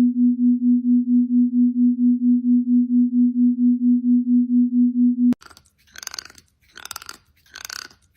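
A loud, steady, low electronic tone pulsing about four times a second, which cuts off suddenly about five seconds in. Short rasping noises follow, evenly spaced about every second.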